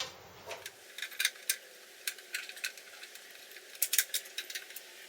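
Small plastic bulb holders and wiring being handled and fed through the scooter's front, giving scattered light clicks and rattles, with a cluster of sharper clicks about four seconds in.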